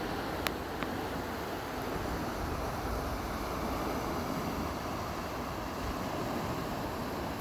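Steady rush of water churning out below the lock gates as the lock chamber is emptied to lower a boat, with two sharp clicks just under a second in.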